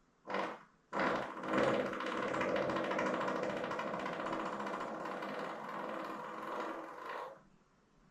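A woman farting: a short burst, then one long buzzing fart of about six seconds.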